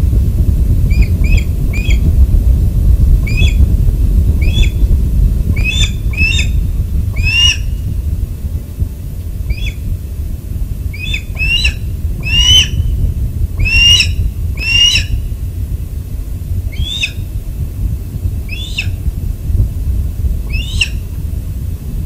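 An osprey calling off the nest: a series of about twenty short, high, piping calls at irregular intervals, some in quick pairs, loudest about halfway through. A steady low rumble runs underneath.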